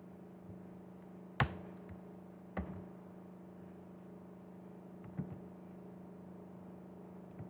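Two sharp clicks a little over a second apart, typical of a computer mouse being clicked, over a faint steady low electrical hum.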